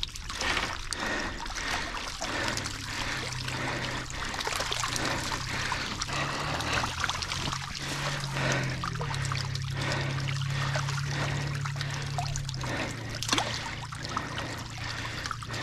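Water trickling and dripping from a wire-mesh fish trap crammed with live fish, with irregular wet splashes and slaps throughout. A low steady hum runs underneath for most of the middle.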